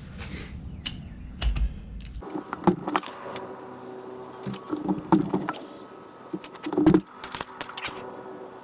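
Metal hand tools clinking and rattling: sockets and a ratchet handled against each other and the engine while bolts are undone, a run of irregular sharp clinks with a few louder knocks.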